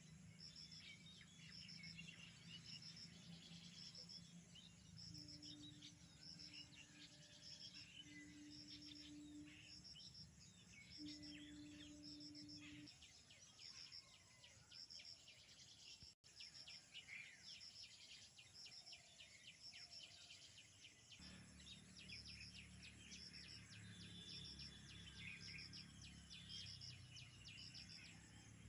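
Faint rural ambience: birds chirping and calling, with a high short call repeating about once a second. A low hum comes and goes underneath.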